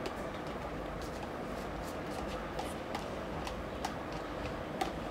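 Steady background hiss with faint, scattered small clicks from a plastic tub being handled by hand.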